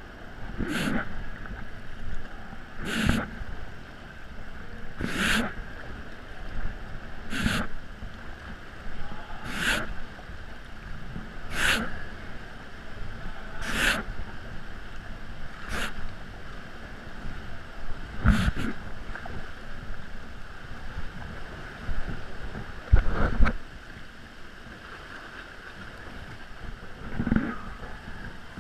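Kayak paddle blades dipping and splashing, about one stroke every two seconds, over water washing around a plastic sit-on-top kayak inside a sea cave. The strokes stop about two-thirds of the way through, and a heavy thump, the loudest sound, comes soon after.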